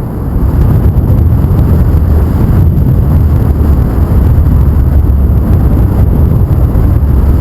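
Airflow buffeting the microphone of a paraglider in flight: a loud, steady low rumble of wind noise.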